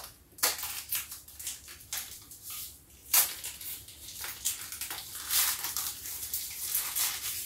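Packaging wrapper rustling and crinkling in the hands as it is pulled off a DJI Pocket 2 camera. The sound is a run of irregular crackles, with one sharp, louder crackle about three seconds in.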